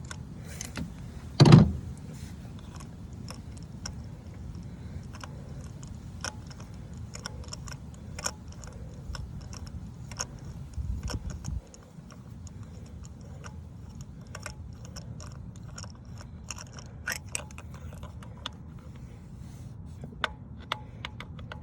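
Scattered light metallic clicks and clinks of hand tools working on a spark plug with a socket and extension, over a steady low hum. There is one louder knock about a second and a half in and a short low rumble around the middle.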